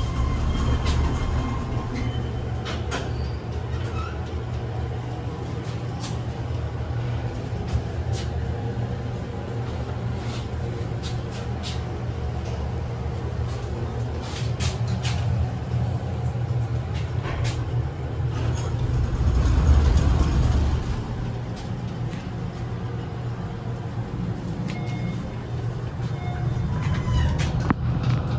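KONE glass elevator car riding between floors: the car door slides, the car travels with a steady low hum and scattered clicks, and brief tones sound near the start and again near the end. A louder low rumble swells about twenty seconds in.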